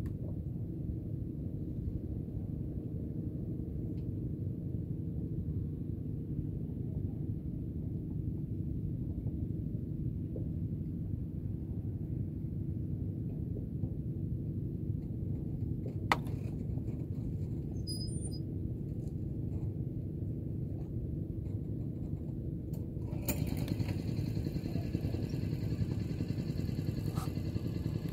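A motor engine running steadily as a low hum, growing louder with a higher, buzzier edge for the last few seconds. A single sharp click about two-thirds of the way through.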